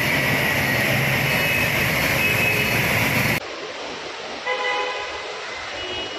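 Loud, steady rush of motorcycle engines and water as bikes ride through deep floodwater, cut off suddenly a little over three seconds in. Then quieter wet-road traffic noise, with a short vehicle horn honk about a second later.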